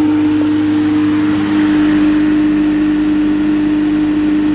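Refrigerant recovery machine running steadily, pumping R410A out of a rooftop AC circuit through a subcooler from the liquid port, with a strong, constant hum over a steady whir.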